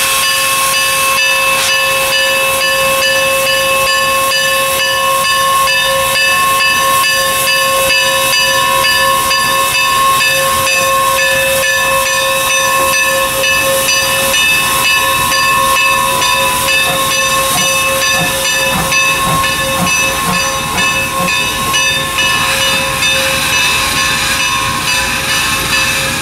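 Norfolk & Western class M 4-8-0 steam locomotive No. 475 venting steam: a loud, steady hiss with a ringing tone that holds throughout, with a few low thumps about two-thirds of the way through as it rolls away.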